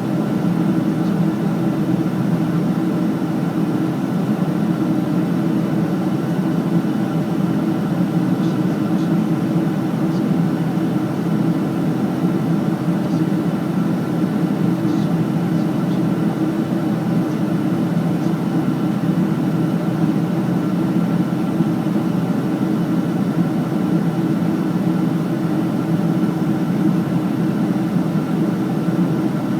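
Steady drone of an airliner cabin in flight: engine and airflow noise, even and unchanging.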